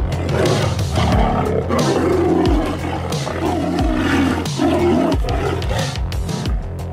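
Two Bengal tigers fighting, with repeated overlapping snarls and roars.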